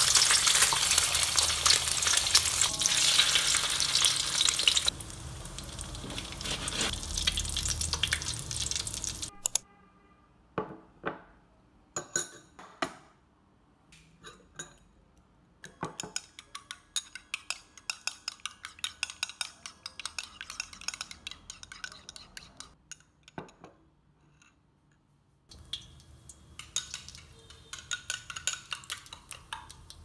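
An egg frying in hot oil in a steel wok, a loud sizzle that eases after about five seconds and stops around nine seconds in. Then a metal spoon beats eggs in a bowl with scattered clinks that become a fast run of taps. Near the end, oil sizzles in the wok again.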